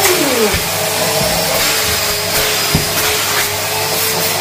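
Numatic George wet-and-dry vacuum cleaner running steadily, a motor whine over airflow hiss, with a couple of light knocks about the start and near the middle.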